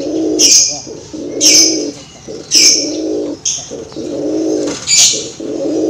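Male merpater, a pigeon–dove hybrid, cooing over and over, one rolling coo about every second, with short high chirps at the start of most coos. This is the courtship cooing of a male that is driving (giring) the female.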